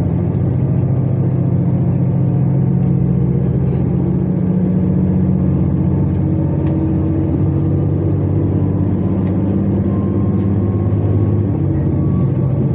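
Diesel limited express train running, heard from inside the passenger car: a steady low engine drone over the rumble of the wheels on the track, with faint tones slowly rising in pitch.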